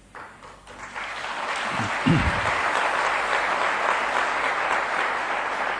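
Audience in a large hall applauding, swelling over the first second and then holding steady. A single short voice cuts through about two seconds in.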